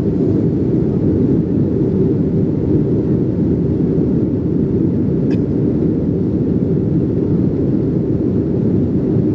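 Cabin noise of a Boeing jet airliner in flight, heard from a window seat: the engines and airflow make a steady low noise that holds without change.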